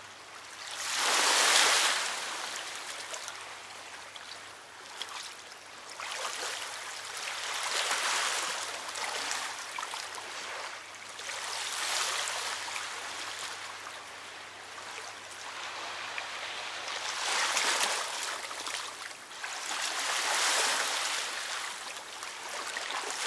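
Small waves washing onto a sandy river bank, the rush of water swelling and falling away every few seconds.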